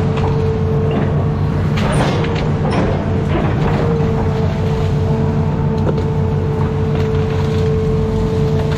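Hitachi Zaxis 210F amphibious excavator's diesel engine running steadily under load, with a steady whine over it. Branches and brush snap and crack several times in the first few seconds as the arm pushes into the trees.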